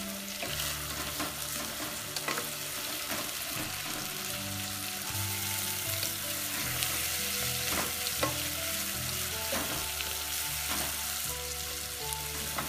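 Sliced onions frying in hot oil in a nonstick pot, a steady sizzle, with a wooden spatula stirring and scraping the pot every second or so.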